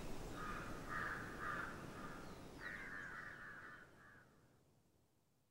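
A bird giving about seven harsh calls in a row over faint outdoor background noise; the calls and the background fade out to silence about four seconds in.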